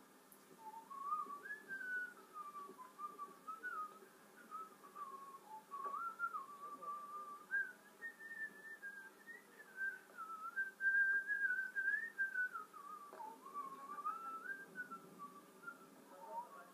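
A person whistling a meandering tune: one clear melody line that rises and falls, highest around the middle, with a short break near the end.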